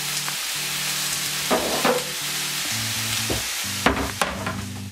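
Chicken fillet and onion rings sizzling steadily in a hot frying pan, with a few short knocks near the end. Background music plays underneath.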